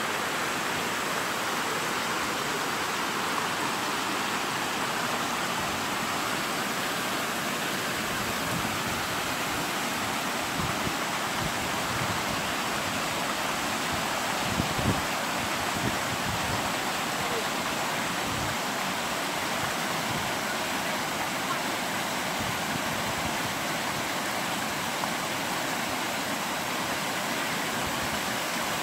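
Water rushing over a low river weir: a steady, even roar of white water. A few low bumps come around the middle.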